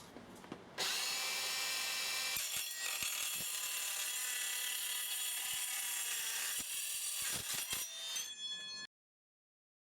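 Makita CS540D cordless metal-cutting circular saw cutting through steel, a dense high-pitched cutting noise. It starts about a second in and cuts off abruptly near the end.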